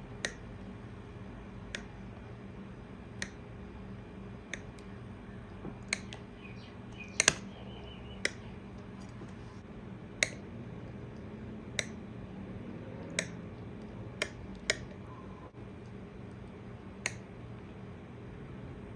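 Sharp, separate clicks of a knife striking a plate, about a dozen of them roughly a second or so apart, the loudest about seven seconds in, over a low steady hum.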